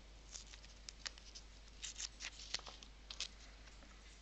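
Faint, scattered light clicks and crinkles of the opened paper sight-dot pack and its small tools being handled, about ten short ticks, the sharpest about two and a half seconds in.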